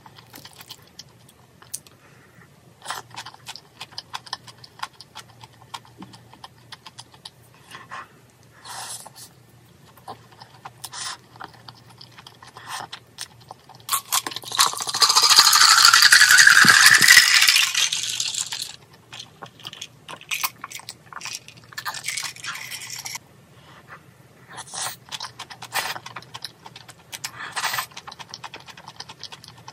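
Mukbang eating sounds: a metal spoon and chopsticks clinking and scraping against a ceramic bowl and a plastic takeout tray, with chewing. About halfway through, a loud rush lasting about four seconds with a rising pitch, as iced tea is poured into a cup.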